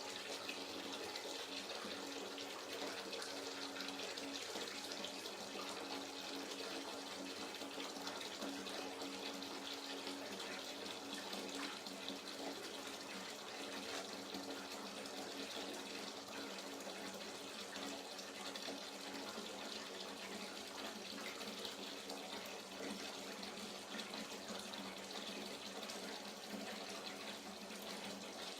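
Hot water running steadily from a tap into a bathtub as it fills, an even splashing rush with a faint low hum.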